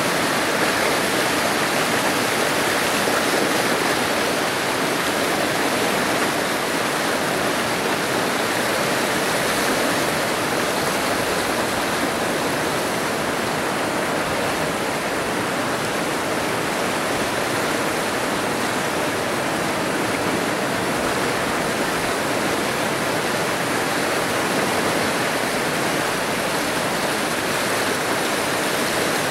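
A river in flood, swollen and muddy, rushing past in a steady, even wash of moving water.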